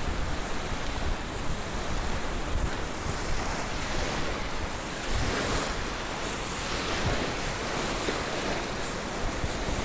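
Wind blowing across the phone's microphone, low buffeting gusts that come and go over a steady rushing hiss.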